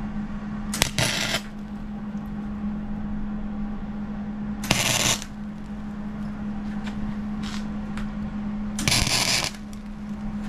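Electric arc welder striking three short tack welds, each a brief sizzling crackle of the arc, over a steady low hum.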